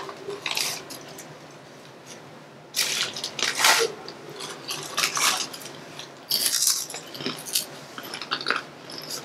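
Tortilla chips being crunched and chewed, with a crinkly plastic snack bag being handled, in irregular bursts.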